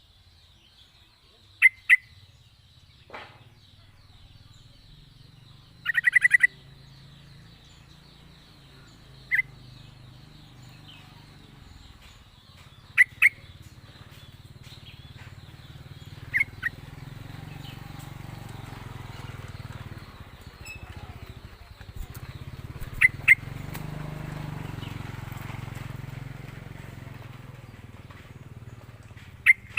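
Yellow-vented bulbul (trucukan) giving short, loud bubbling calls every few seconds, one of them a fast rolling trill about six seconds in.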